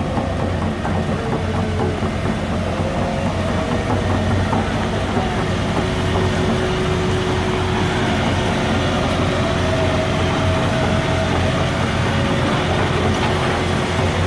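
Heavy diesel construction machinery running steadily: a low engine drone with a thin whine above it.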